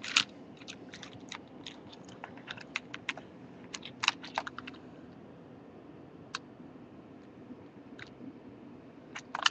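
Small sharp clicks and taps of a die-cast toy car and a plastic Hot Wheels play set being handled, coming quickly over the first half and only now and then after that.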